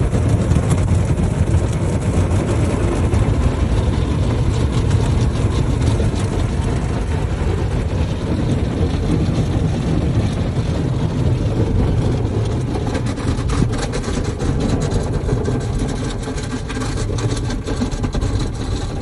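Automatic car wash heard from inside the car's cabin: a loud, steady rumble of water spray and wash machinery coming through the car body. Over the last several seconds, cloth brushes sweep across the glass with a rapid patter of knocks.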